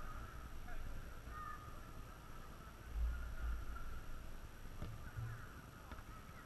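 Faint, distant shouts and calls of footballers across the pitch, over a low rumble.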